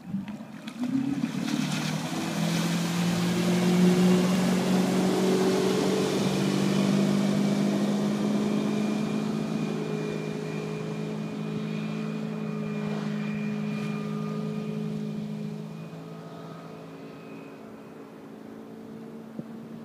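The 5.0 L MerCruiser V8 sterndrive of a Sea Ray 225 Weekender opening up: the engine note rises in pitch about a second in, then runs loud and steady at planing speed over the rush of water from the hull and wake. It fades in the last few seconds as the boat pulls away.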